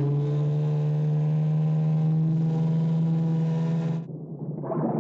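Motorboat engine running at a steady pitch that rises slightly, cut off abruptly about four seconds in.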